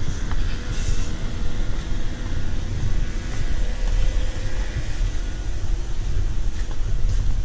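Low, steady rumble of wind buffeting the microphone.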